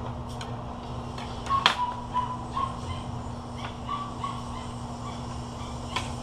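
Metal serving utensils clinking against plates, with one sharp clink about a second and a half in and another near the end. Under them run a steady hum and a string of short high-pitched calls.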